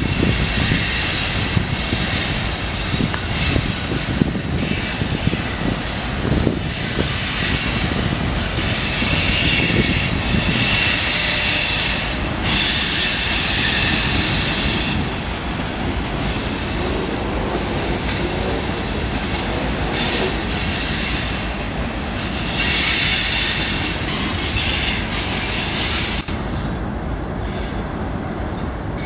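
Freight train of tank cars rolling through a curve, with a steady rumble and clatter from the cars. High-pitched wheel squeal rises and fades several times over the passage.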